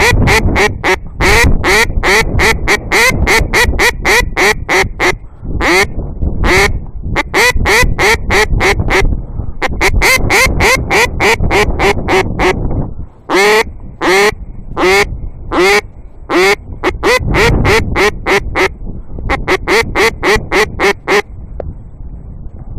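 A duck quacking in fast runs of loud calls, about four or five a second with short pauses between runs, stopping near the end, over wind rumbling on the microphone.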